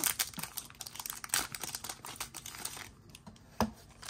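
Trading card pack wrapper crinkling as it is torn open and the cards are pulled out, then a single sharp knock near the end.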